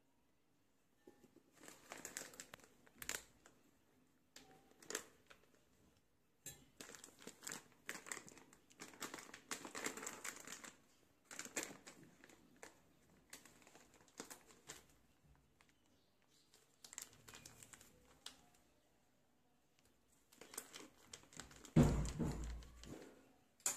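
Plastic bag of flour crinkling and rustling in irregular bursts as spoonfuls of maida and cornflour are scooped out of it. A louder rustle near the end as the bag is gathered up in the hand.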